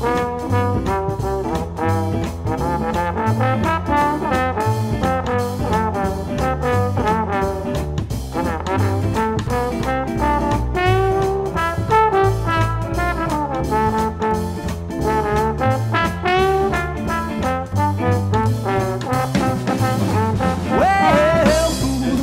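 A live swing-style band playing an instrumental break between sung verses, with a brass horn carrying the lead melody over a steady bass and drum beat.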